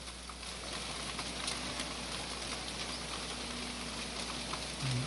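Steady rain: an even hiss of falling rain with faint scattered drop ticks.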